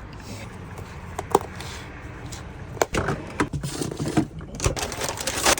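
Scattered small clicks, taps and rustles of hands handling things, busier in the second half, over a low steady background.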